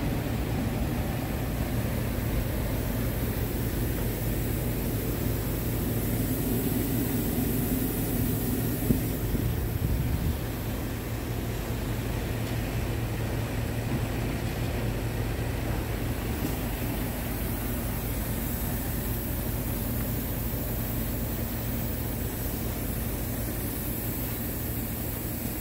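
Scania R truck's diesel engine idling steadily, with one sharp click about nine seconds in.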